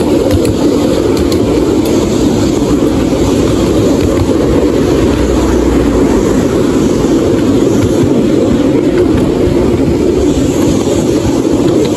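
Narrow-gauge railway carriage running along the track, heard from on board: a steady, unbroken rumble of the wheels on the rails.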